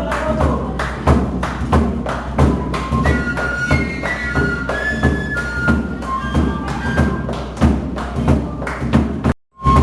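Music: a high, flute-like melody over steady drum beats, about three a second. It breaks off completely for a split second near the end.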